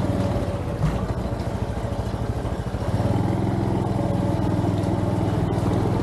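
Honda Trail 125's air-cooled single-cylinder four-stroke engine running at low speed as the bike crawls along, picking up a little about three seconds in. A steady higher tone runs above the engine note.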